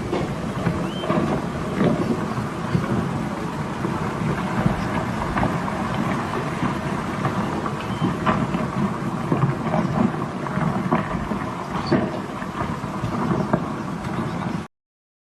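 Massive rockfall: a continuous low rumble with rocks clattering and knocking throughout. The sound cuts off abruptly just before the end.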